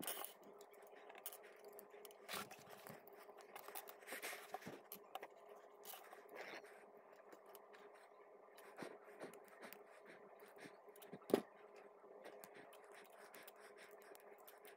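Small plastic construction-toy pieces being handled and pressed together: faint scattered clicks and scrapes, with one sharper snap about eleven seconds in. A faint steady hum runs underneath.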